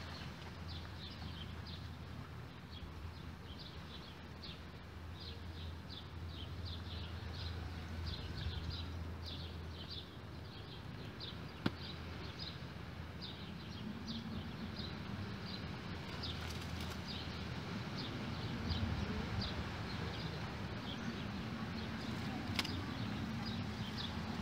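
Background chirping of small animals: short, high chirps repeating irregularly a few times a second, over a low steady rumble, with one sharp click about halfway.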